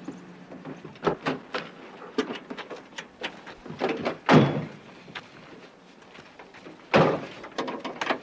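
A pickup truck's doors being opened and slammed shut: a run of clicks and knocks, with two heavy slams about four and seven seconds in.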